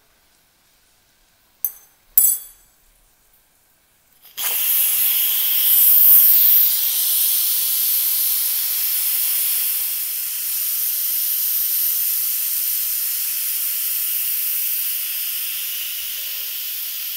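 Instant Pot pressure cooker's steam release valve pushed from sealing to venting with a fork: a couple of short clicks, then about four seconds in a loud hiss of steam starts suddenly and keeps going, easing slightly. This is the quick pressure release after cooking, before the lid can be opened.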